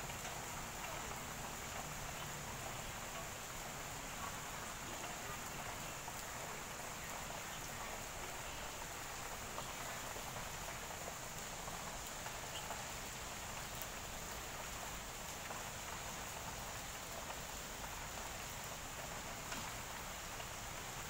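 Light rain falling: a steady, even hiss.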